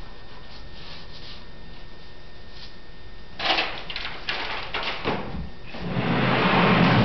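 Thin wooden template strip being handled on a workbench of wenge boards: a sharp knock about three and a half seconds in and a few lighter clatters, then a longer scrape of wood sliding over wood near the end.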